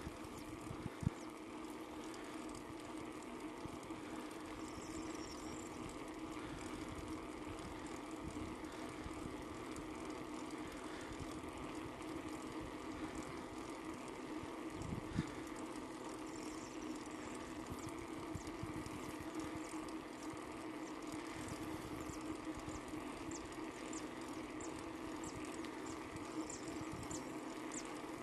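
Mountain bike rolling along asphalt, its tyres giving a steady hum, with a sharp knock about a second in and another about halfway through.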